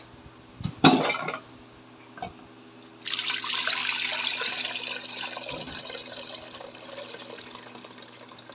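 A couple of light clinks, then a rush of running water starts suddenly about three seconds in and slowly dies away.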